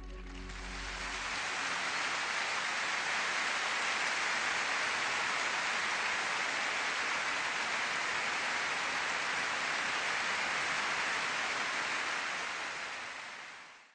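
A steady, even rushing hiss that fades in over the first second or so and fades out near the end.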